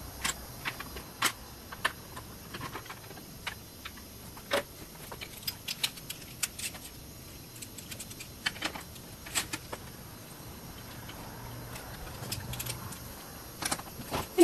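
Irregular clicks, taps and light knocks of hand tools, screws and plastic panels being handled while the body panels are taken off a small motorbike.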